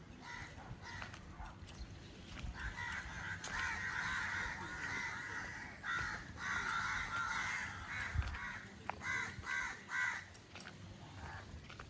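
Crows cawing: a long stretch of harsh overlapping calls, then a quick run of short caws near the end.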